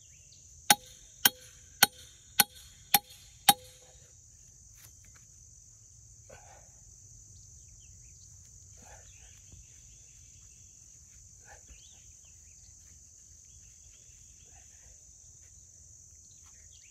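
Six quick hammer blows, about two a second, each with a short ring, driving a metal punch into the ground to make a trap's punch hole. A steady insect drone, crickets or the like, runs underneath.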